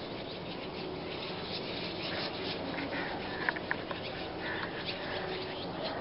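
A flock of swallows twittering: a dense, steady chorus of many short overlapping chirps, with a few louder single notes standing out around the middle.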